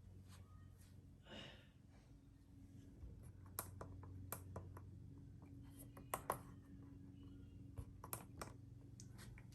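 Near silence: a faint low hum with scattered faint clicks, a few of them in quick pairs.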